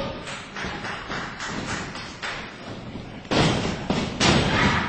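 Impacts in a wrestling ring: a few lighter thuds, then two loud ones a little under a second apart past the three-second mark.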